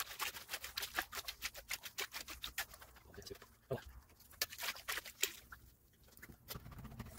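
Water sloshing and splashing as a plastic gold pan is shaken and dipped in a tub of muddy water. Rapid, irregular splashes fill the first few seconds, then thin out to a few separate splashes.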